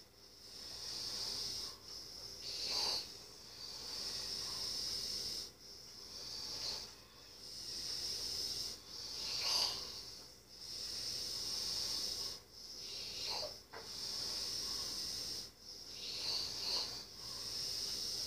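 A sleeping person's breathing: a hissing, wheezy breath that swells and breaks off about every two to three seconds.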